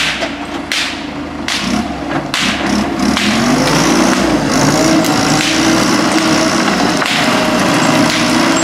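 An engine running; about three seconds in it revs up, its pitch rising slightly, and then it holds steady under load. Before that there are a few short sharp noisy bursts.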